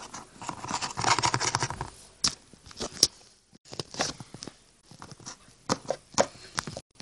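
Handling noise as a plastic toy figure is moved by hand across a surface: irregular taps and clicks, with a longer stretch of scraping and rustling about a second in.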